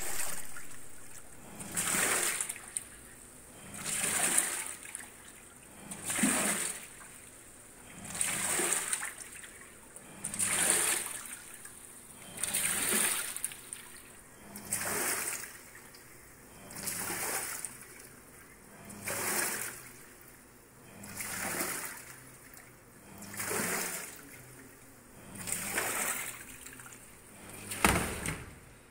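Washing machine washing, with water sloshing in the drum in regular surges about every two seconds. The last surge, near the end, is louder.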